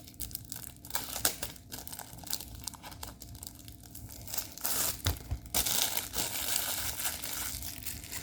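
Packaging crinkling and rustling as a diamond painting kit is handled and unpacked: scattered crackles at first, becoming denser and louder about halfway through.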